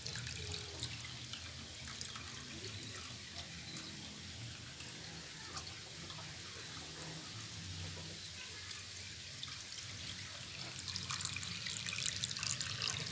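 A steady trickle of running water with small drips and splashes, over a faint low hum.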